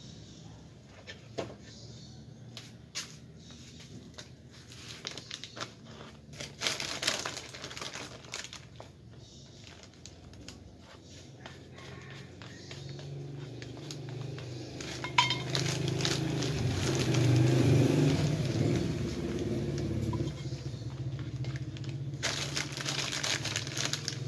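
Clear plastic sack crinkling and rustling, with scattered small clicks and knocks of plastic pots being handled. A low steady hum swells in about halfway, louder a little past the middle, and a dense burst of plastic crinkling comes near the end.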